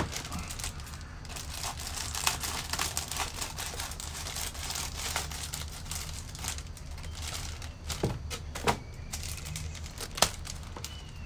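Clear plastic plant sleeve crinkling and rustling as it is handled around a potted plant, with a few sharper crackles in the last few seconds.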